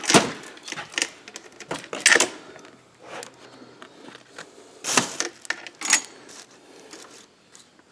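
Saw chains being handled, their steel links clicking and rattling in irregular short bursts, loudest right at the start, about two seconds in and around five seconds in.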